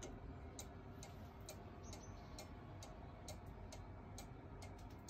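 Weight-driven carved wooden cuckoo clock ticking steadily, a little over two ticks a second.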